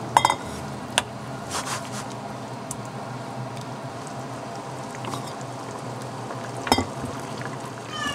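Mapo eggplant sauce simmering in a nonstick pan while a wooden spatula stirs it, with a few sharp knocks of the spatula against the pan, one near the start, one about a second in and one near the end.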